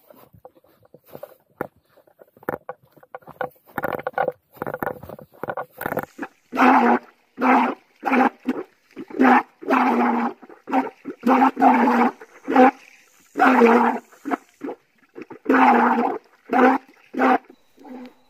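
A dog barking over and over, loud calls about once a second that begin about six seconds in, after a few seconds of faint scattered rustling and taps.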